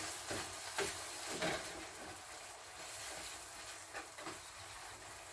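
Fried omena sardines with milk poured over them, sizzling faintly in a frying pan, while a wooden spoon stirs and scrapes the pan with a few soft knocks.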